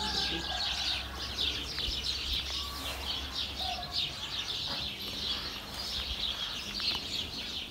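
Many small birds chirping rapidly and continuously, a dense twittering chorus, over a faint low hum that stops about six and a half seconds in.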